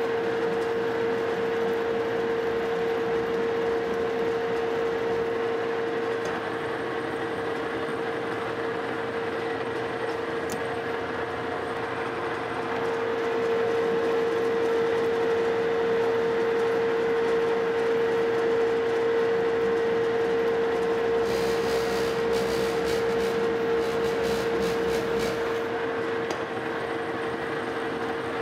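Metal lathe running while a single-point tool cuts a coarse thread, 7 threads per inch, into a metal bar: a steady mechanical hum with one strong steady tone. A short run of sharp clicks comes about three-quarters of the way through.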